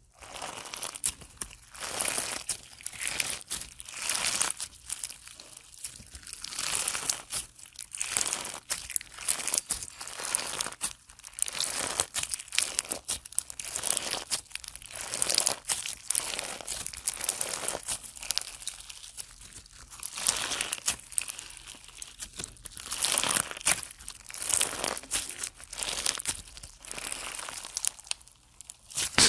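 Clear slime packed with hard blue crunchy beads being squeezed, kneaded and stretched by hand, crackling and crunching in repeated bursts as the beads grind and the slime pulls.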